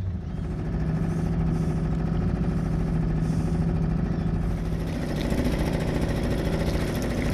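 Small outboard motor on a dinghy running steadily under way, its note shifting slightly about halfway through.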